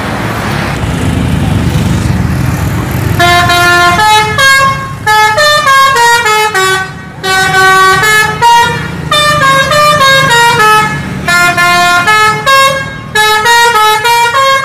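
Engine and road noise of a passing coach, then its multi-tone 'telolet' horn playing a quick tune of stepped notes in short phrases with brief gaps.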